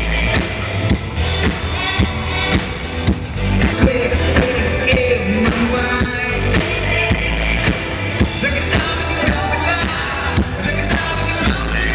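Rock music with a singing voice over a steady drum beat and heavy bass.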